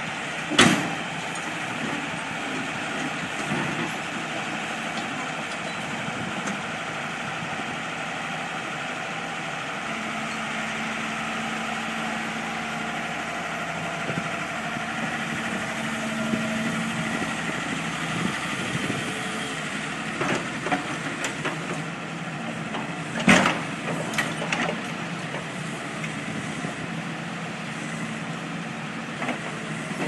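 A tracked excavator's diesel engine running steadily under load as it climbs onto a flatbed truck. Two loud sharp knocks come through, one just after the start and one about 23 seconds in, with a few smaller knocks around them.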